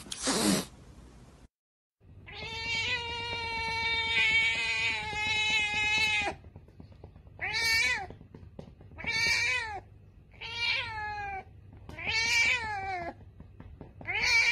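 A domestic cat meowing: first one long drawn-out call held at a steady pitch for about four seconds, then a string of about five shorter meows, one every second and a half or so, each rising and falling in pitch. A brief falling squeal at the very start is followed by a moment of silence before the meowing begins.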